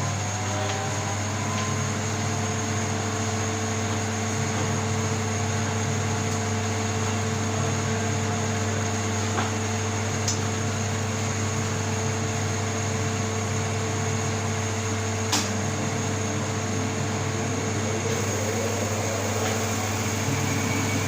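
Gas oven running after being switched on: the steady hum of its electric fan motor, which settles to a constant pitch at the start, with a couple of faint clicks partway through.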